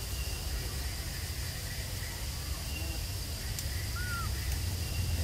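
Forest ambience: a steady high insect drone over a low wind rumble on the microphone, with a few faint short chirps, one small hooked call about four seconds in.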